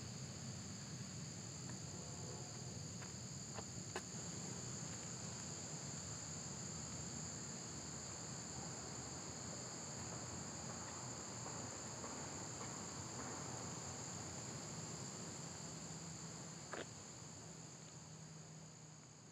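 Steady outdoor chorus of insects, two unbroken high-pitched tones over a low rumble, fading out near the end, with a couple of faint clicks.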